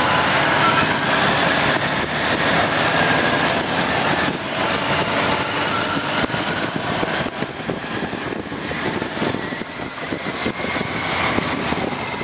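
Motorcycle engine running while riding slowly on a rough dirt road, heard from on the bike with dense rushing noise over the microphone; other motorcycles ride just ahead.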